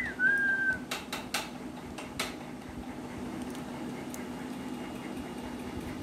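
A short whistle that rises quickly and then holds one steady note for about half a second, followed by four sharp clicks about one to two seconds in, over a steady low hum.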